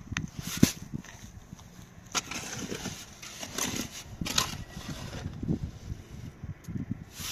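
A trowel and a shovel working wet cement mortar: irregular scrapes and sharp knocks as the mortar is spread and scooped out of a wheelbarrow.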